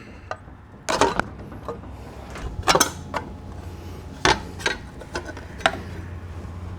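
Hand tools knocking and clinking against a small lawn-tractor engine on a steel table, about seven sharp metallic knocks spread irregularly over a steady low hum.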